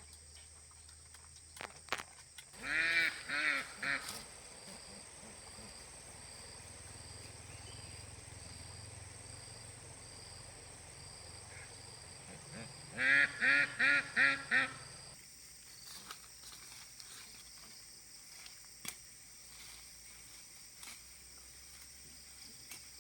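Duck quacking in two short runs: three quacks about three seconds in, then five quick quacks about thirteen seconds in.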